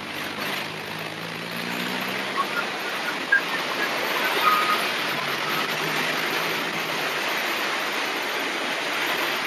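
Hunter River in flood rushing and churning past the levee: a steady, even rush of fast water, with a faint low drone in the first half and a few short high chirps in the middle.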